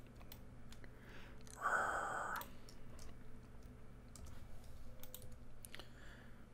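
Scattered computer mouse and keyboard clicks, with a brief breathy sound about two seconds in, over a steady low hum.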